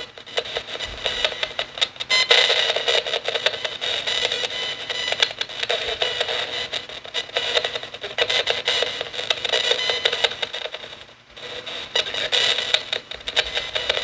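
Nanocom Coffin Edition spirit box sweeping through radio frequencies, giving a steady stream of choppy, rapidly chopped static through its small speaker, with a brief drop about eleven seconds in.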